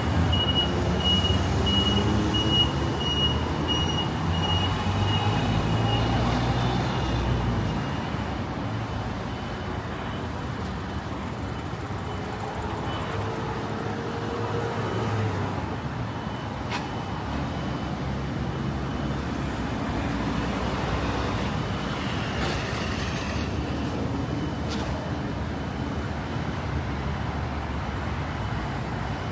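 Street traffic: engines of passing vehicles over a steady road hum, louder for the first several seconds as a vehicle goes by, then settling.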